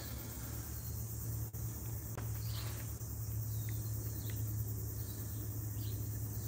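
Outdoor ambience of a park: a steady low hum and a steady high hiss, with a few brief, faint bird chirps.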